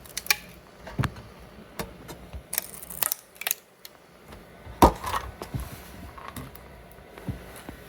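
Freshly 3D-printed plastic parts being handled: irregular clicks and taps, the loudest knock about five seconds in.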